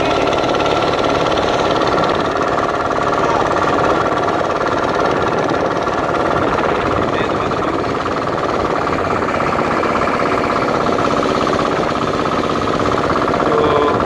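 Small wooden passenger boat's engine running steadily under way, a continuous loud mechanical drone.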